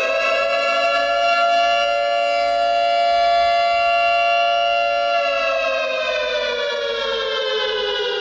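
A siren wailing in one long slow cycle: its pitch creeps up during the first second, holds steady for several seconds, then sinks gradually over the last three seconds.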